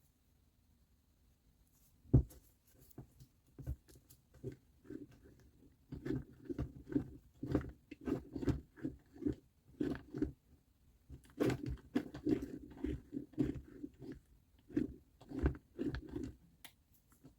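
A single sharp knock, then runs of short, rhythmic scraping strokes, about two or three a second, with a brief pause in the middle: hand work scraping or scrubbing a part on the bench.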